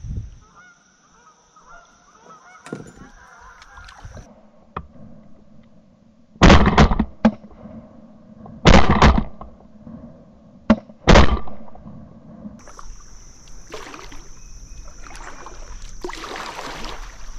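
Canada geese honking as a flock flushes off the river, then a volley of shotgun shots from several hunters. The shots come in three quick groups between about six and eleven seconds in and are the loudest sounds.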